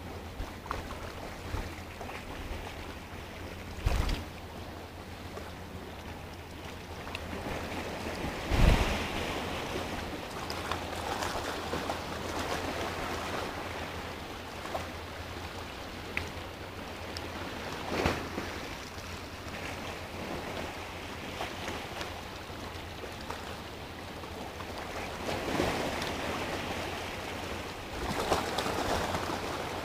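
Sea waves washing and breaking against a rock, as a steady wash with a few sudden louder splashes, the loudest about a third of the way through, and the surf building up again near the end.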